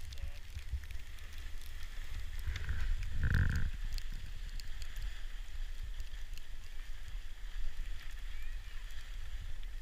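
Skis running over packed snow on a downhill run, with a steady wind rumble on the moving microphone. A short tone sounds briefly a little over three seconds in.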